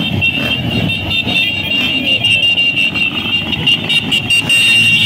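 Several small motorcycle engines running as the bikes ride past at low parade speed, over a steady high-pitched whine.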